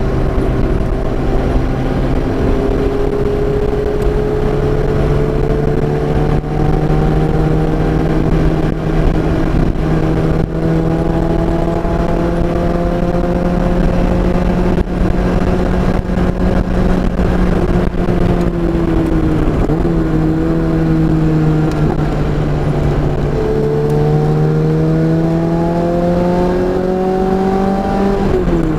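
Car engine under load at high revs, its pitch climbing slowly as the car accelerates, dipping about two-thirds of the way through, then rising again before dropping sharply near the end as the driver shifts or lifts, over steady wind and road noise.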